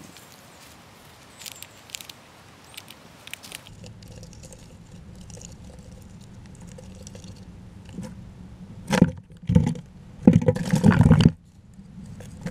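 A small rodent at a feeder close to the microphone: light scratchy clicks, then loud rustling and knocking in three spells, about nine seconds in, again half a second later, and for about a second just before the end.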